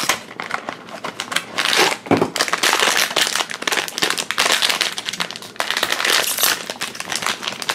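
Metallic foil blind bag crinkling as it is pulled out of a cardboard blind box and pulled open by hand, a busy, continuous rustle.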